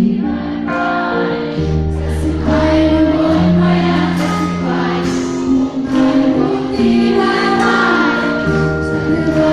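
Live pop music with singing, played loud through a concert hall's sound system and recorded from among the audience: long held notes over a steady bass line, changing chord every second or two.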